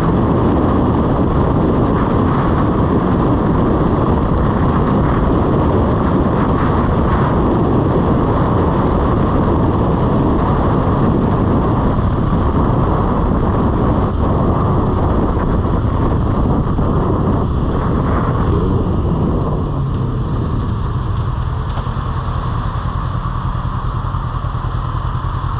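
Riding noise from a moving motorcycle: wind rushing on the microphone over the engine and the traffic around it. Everything drops in level about twenty seconds in, as the bike slows toward idling.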